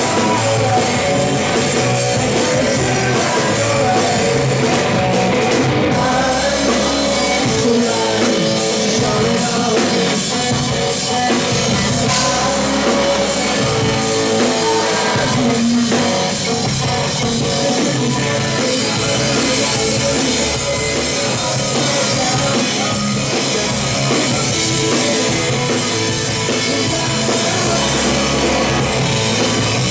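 Live rock band playing: electric guitars and drum kit going without a break, with a singer's voice over them.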